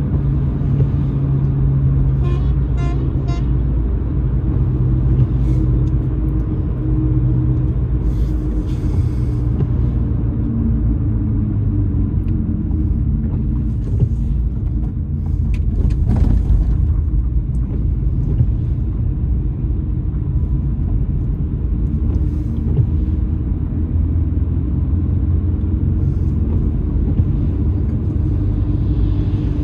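Steady low rumble of a car driving on a wet road, heard from inside the cabin: engine and tyre noise. A brief run of quick ticks a couple of seconds in, and a short knock about halfway through.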